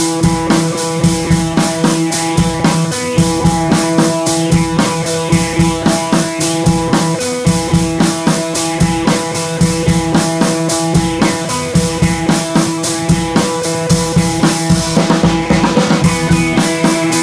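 Background music with a steady drum-kit beat over sustained melodic tones.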